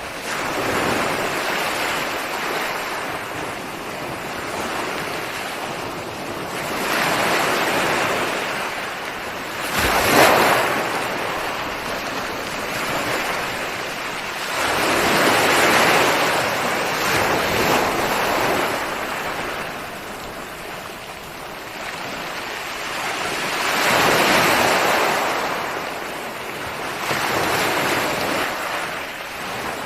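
Ocean waves breaking and washing on a shore, surging and easing in swells every few seconds, with one sharper crash about ten seconds in. The sound cuts in suddenly from silence at the start.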